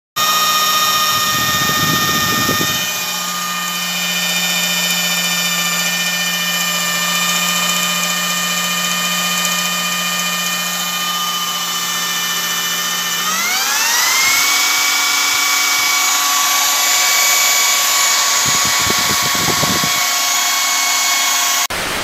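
Electric drill spinning a homemade generator made from a fan motor, under the load of a 55-watt lamp: a steady whine with many tones. About thirteen seconds in, the pitch rises over about a second and then holds higher. A short burst of hiss comes just before the end.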